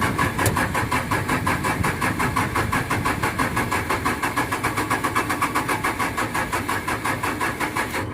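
Starter motor cranking the backhoe's engine over in an even, rapid beat without the engine firing, then stopping abruptly at the end. The steady cranking shows the battery has enough charge to turn the engine.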